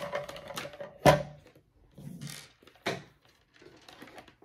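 Hard plastic knocking and rubbing as a large red button switch and its cable are handled and set down on a table. The sharpest knock comes about a second in, with a smaller one near three seconds.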